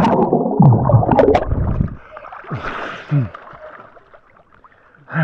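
Swimming-pool water splashing and churning, loud for the first two seconds, then quieter sloshing with a short splash about three seconds in. Several brief sounds that slide down in pitch come through the water noise.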